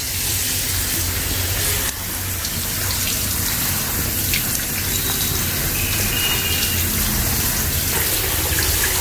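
Water from a wall tap pouring steadily into a plastic basin of mustard greens as hands turn the leaves over to wash them.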